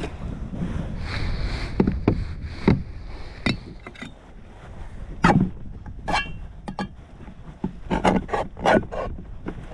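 Scissor points stabbing and scraping at the lid of a steel corn can: an irregular run of sharp taps and scrapes, some with a brief metallic ring, punching a hole in the lid in place of a can opener.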